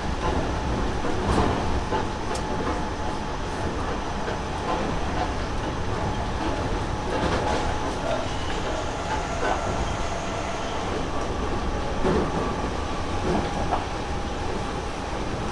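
Seibu 30000 series later-batch electric train running, heard from inside a motor car: steady wheel and rail noise with occasional clicks of the wheels over rail joints and a faint steady whine.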